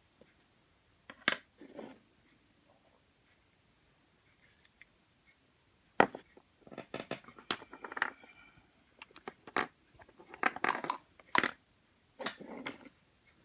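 Hands handling Play-Doh and its plastic tools: a few sharp clicks with short stretches of scraping and crinkling in between.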